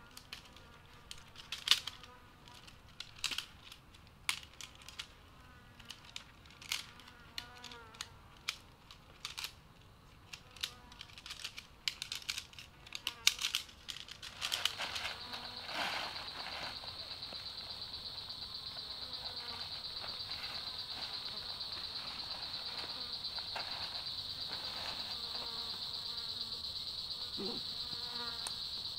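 Sections of a tent pole clicking and knocking together as the pole is folded up, with sharp clicks every second or so. About halfway through these stop and a steady, high insect drone takes over.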